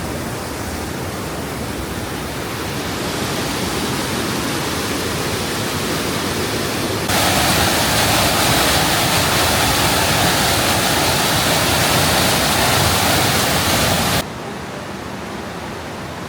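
Rushing water of the Düden waterfall, a steady roar of falling water. It jumps louder about seven seconds in and drops off abruptly about two seconds before the end.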